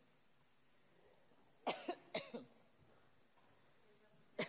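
A woman's coughing fit: two harsh coughs close together about two seconds in, and another beginning right at the end.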